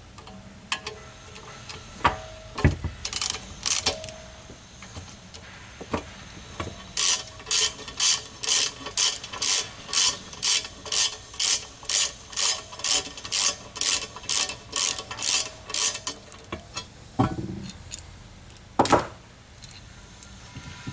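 Ratchet wrench turning a bolt, a run of about twenty short ratcheting strokes at roughly two a second, with a few single metal knocks before and after.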